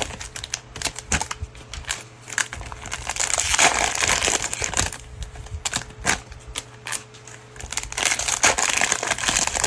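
Crinkling and tearing of a Panini Mosaic football cello pack's plastic wrapper as it is ripped open, with the cards rustling and clicking in the hands. It comes in two louder stretches, one in the middle and one near the end.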